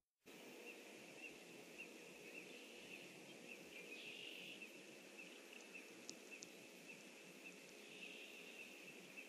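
Faint outdoor pond ambience with a short high peep repeated about twice a second, joined by brief flurries of higher calls about four and eight seconds in. The sound drops out for a moment at the very start.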